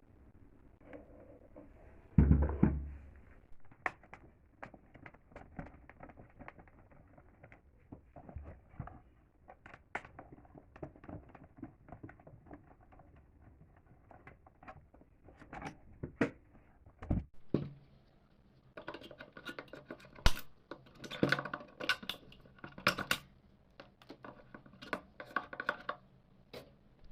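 Hand work on a car headlight: scattered clicks, knocks and short scraping or rubbing noises, with a loud thunk about two seconds in and denser scraping in the second half.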